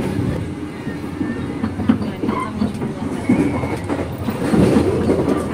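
Passenger train running along the track: a steady low rumble with irregular knocks from the wheels.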